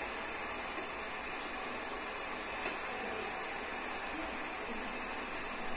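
A steady, even hiss.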